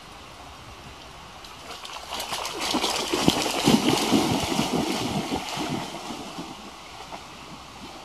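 Two Alaskan Malamutes running through shallow floodwater, a rush of splashing that builds about two seconds in and dies away by about six seconds, over a steady low hiss.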